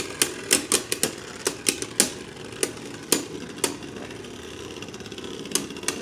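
Two Beyblade Burst spinning tops clashing in a plastic stadium: rapid, irregular sharp clacks for about three and a half seconds, then a lull, then two more hits near the end.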